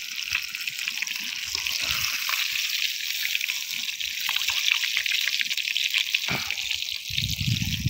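Small fire of twigs and dry stalks crackling, a dense run of fine pops and hiss. A low rumble comes in near the end.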